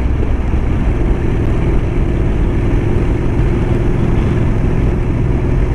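Motorcycle running at a steady cruise, its engine drone even and unchanging under a constant rushing haze.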